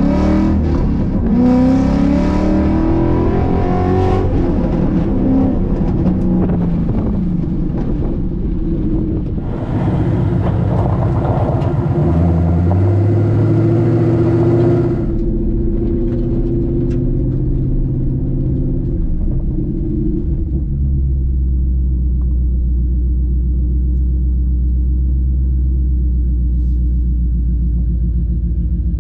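Ford Boss 302 V8 running through aftermarket side pipes. It revs up and drops back several times, with a loud rushing noise over it for about five seconds near the middle, then settles into a steady low rumble for the second half.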